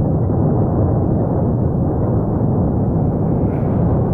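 Cumbre Vieja volcano erupting: a continuous deep rumble, steady in loudness, with no separate blasts standing out.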